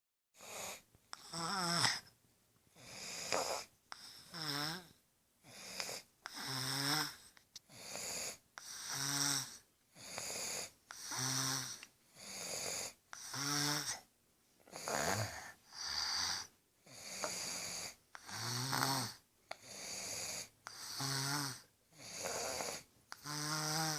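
A sick baby boy snoring, a steady run of noisy breaths about one a second, many with a pitched tone that slides up or down.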